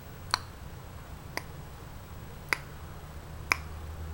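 Sharp single clicks, four of them at about one a second and slightly uneven spacing, over a faint steady low hum.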